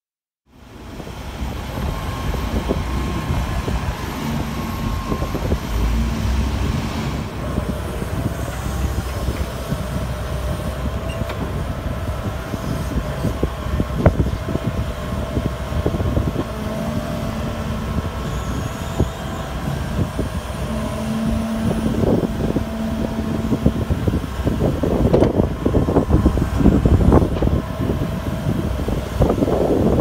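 Wheeled excavator's diesel engine running with a steady hydraulic whine as it digs and lifts soil with its bucket. A sharp knock comes about 14 seconds in, and clattering and scraping grow denser and louder over the last several seconds.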